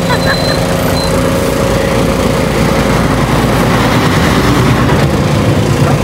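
A motor vehicle engine running steadily close by, a constant low hum, over street traffic noise.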